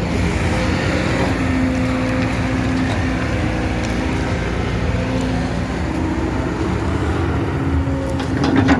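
Kobelco 220 excavator's diesel engine running steadily at work, with a few sharp knocks near the end.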